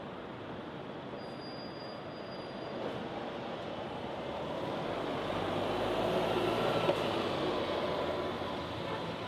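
Red double-decker bus passing close by in street traffic: engine and tyre rumble with a thin high whine that swells to its loudest a little past halfway, then eases off.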